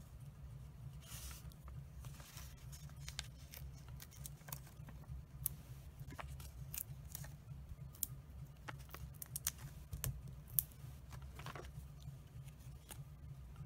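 Paper-crafting handling sounds: short light clicks and a few soft rustles as cardstock pieces and a sheet of foam adhesive dimensionals are handled and the dots pressed onto a card piece, over a low steady hum.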